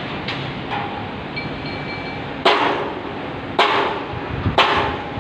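Hammer striking a steel beam connection: a couple of light taps, then heavy metallic blows about once a second from about halfway through, each with a short ring.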